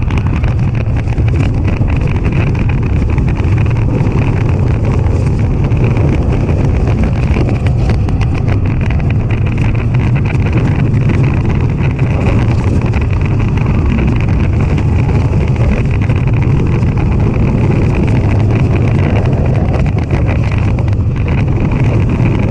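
Rocky Mountain Construction wooden roller coaster train running at speed along the track: a loud, steady rumble and rattle of the wheels on the steel-topped wooden rails, with wind on the onboard microphone.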